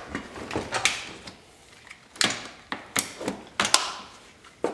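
Irregular knocks and clicks, about a dozen of them, as a car battery's plastic case is lowered into its tray and bumps and settles against the tray and surrounding plastic trim.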